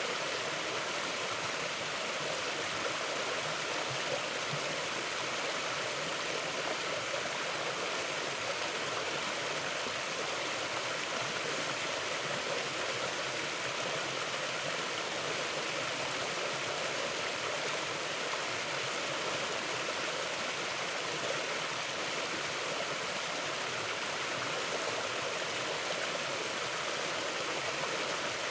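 Forest stream flowing steadily, a continuous even rush of water over stones.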